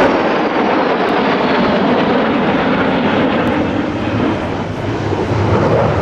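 Loud, continuous jet roar from a low-flying F-111C's twin Pratt & Whitney TF30 afterburning turbofans, easing slightly about two-thirds of the way through.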